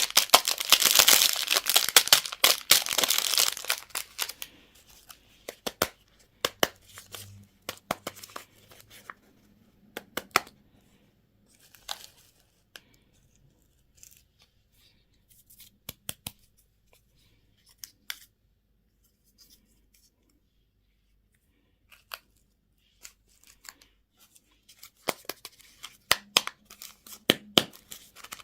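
Plastic candy packaging being torn open and crinkled for the first few seconds, then scattered small clicks and rustles as it is handled, with another burst of crinkling near the end.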